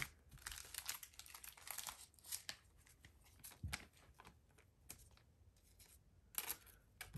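Faint rustling and crinkling of a plastic card sleeve as a trading card is slid into it, with scattered light clicks and a louder rustle near the end.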